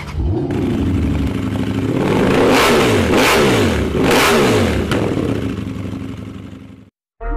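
A motorcycle engine starts and revs, its pitch climbing and dropping several times in a row, then it fades away and cuts off near the end.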